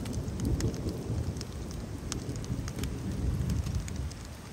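Heavy rain falling, a dense low rumbling wash with many scattered sharp taps of individual drops.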